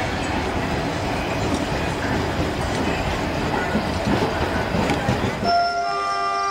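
Indian Railways passenger train rumbling and clattering along a station platform, with voices around it. About five seconds in, the rumble drops out abruptly and several steady held tones take over.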